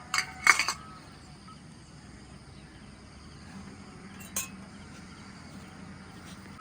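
Cooking utensils clinking: a quick cluster of sharp clinks in the first second, then one more about four seconds later.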